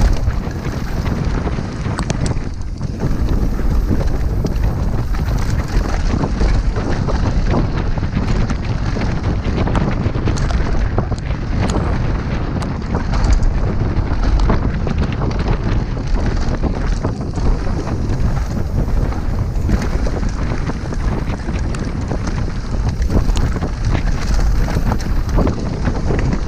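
Wind buffeting the action camera's microphone during a fast downhill mountain-bike descent. Under it, tyres roll over the dirt trail and the bike gives a constant clatter of small knocks and rattles over the rough ground.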